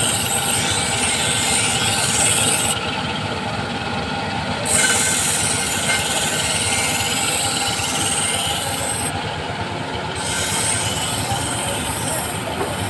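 A large bench grinding wheel runs steadily while a steel barber-scissor blade is pressed against it, making a harsh, hissing grind. The hiss drops away twice for a second or two, about three and nine seconds in.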